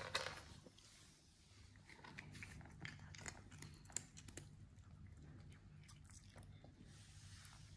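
Cat crunching dry treats and pawing at a plastic treat puzzle board: faint, scattered small clicks and crunches over a low steady hum, with a brief louder rustle at the very start.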